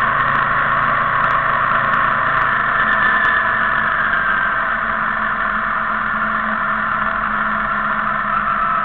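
Motorcycle engine running steadily at riding speed with road noise, heard from a camera on the moving motorcycle.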